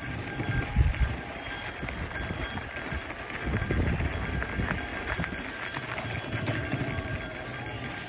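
Mountain bike rolling down a dirt singletrack: knobby tyres on packed dirt and irregular knocks and rattles as the bike goes over bumps, over a low rumble.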